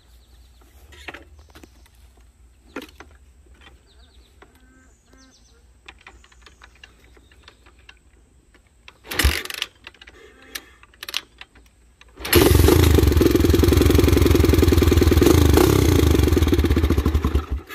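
1985 Honda XR350R's single-cylinder four-stroke RFVC engine being kick-started cold. There is one loud short burst about nine seconds in, then about three seconds later it catches and runs loud and steady through a stainless slip-on exhaust, cutting off suddenly near the end.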